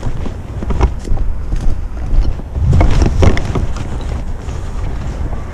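Wind rumbling on the microphone while a person walks, with a few footsteps through dry grass and onto a paved path, the loudest about a second in and around three seconds in.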